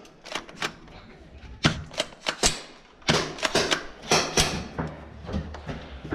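Gel blasters firing in short bursts of sharp cracks: a few shots in quick succession, a brief pause, then another burst, over and over.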